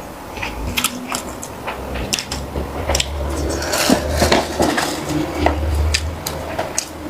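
Close-miked eating sounds: chewing of sticky rice cake, with scattered sharp clicks and light knocks of tableware.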